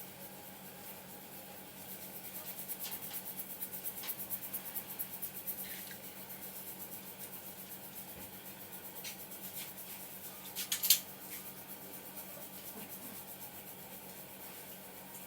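Barber's hands rubbing against hair and scalp during an Indian head massage: a quick, even run of scratchy rubbing strokes for a few seconds, then slower strokes. A sharp short click, the loudest sound, comes about eleven seconds in.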